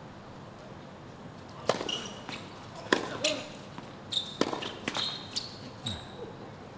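Tennis ball struck by rackets and bouncing on a hard court during a rally: several sharp hits roughly a second apart, starting about two seconds in, with a few short high squeaks between them.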